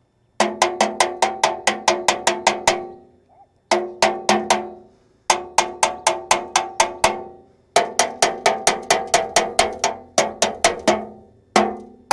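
Rapid tapping on the rusted metal furnace roof vent cap and its screws, about five strikes a second in several runs with short pauses. Each strike makes the cap ring like a bell. The tapping is meant to shock loose rusted, seized screws.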